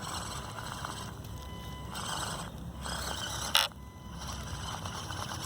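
Axial SCX24 micro RC crawler's small brushed motor and drivetrain running in short throttle bursts as it climbs, with tyres scraping over the terrain and a sharp click about three and a half seconds in.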